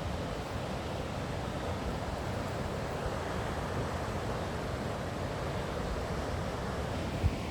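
Steady rushing of a river flowing through a gorge below, a constant even wash of water noise. A single brief thump near the end.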